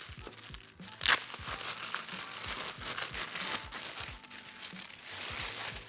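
Clear plastic bag crinkling and rustling as a pair of new boxing gloves is handled inside it and worked loose, with one sharp, loud crackle about a second in.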